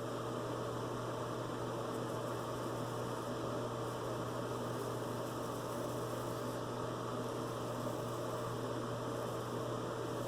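Steady low hum with an even hiss of background noise; no distinct razor strokes stand out.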